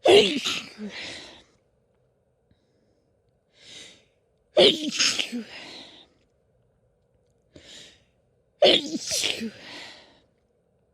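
A woman's sneezing fit: three loud sneezes about four seconds apart, each preceded by a short, sharp intake of breath.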